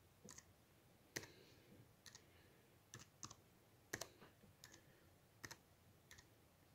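Slow, faint typing on a computer keyboard: about a dozen single keystrokes, unevenly spaced.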